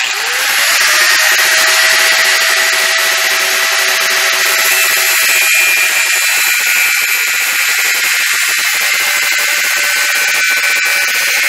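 Angle grinder spinning up to a steady high whine and cutting into a steel bolt on a go-kart spindle, with the hiss of the disc grinding through the metal.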